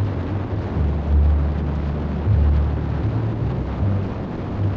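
Harley-Davidson motorcycle riding at road speed: wind rushing and buffeting over the microphone, with a low engine rumble underneath.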